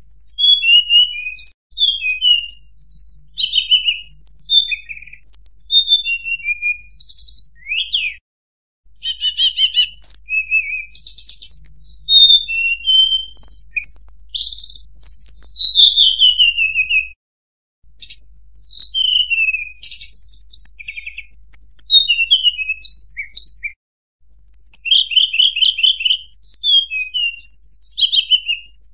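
Hill blue flycatcher (tledekan gunung) singing a recorded lure call: fast, varied phrases of high whistled notes, many sliding downward, broken by short pauses about eight, seventeen and twenty-four seconds in.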